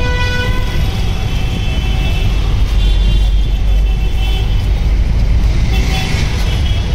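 Road traffic with a steady low engine rumble, and a short horn blast right at the start.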